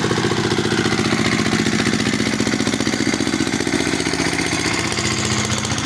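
An engine running steadily at constant speed, with a fast, even chugging beat.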